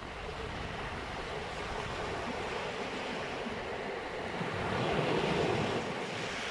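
Sea waves breaking and washing up onto a pebble beach, the surf swelling louder about five seconds in.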